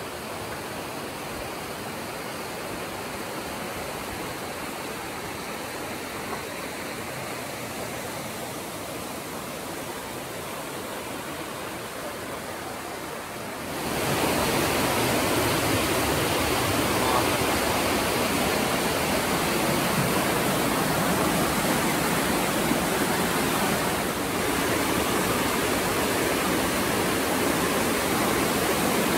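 Whitewater mountain stream rushing over rocks in a steady, even rush of water, fainter at first and much louder from about halfway through.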